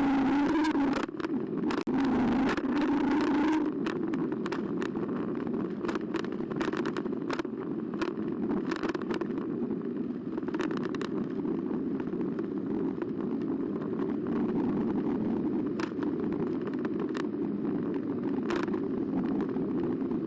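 Electric bike being ridden: a motor whine for the first few seconds, then a steady rumble of tyres and wind with scattered clicks and rattles from the bike going over bumps.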